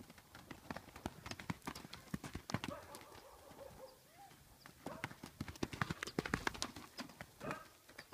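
A mustang filly's hooves beating on loose dirt arena footing as she gallops and plays: irregular, quick hoofbeats, busiest and loudest from about five to seven seconds in.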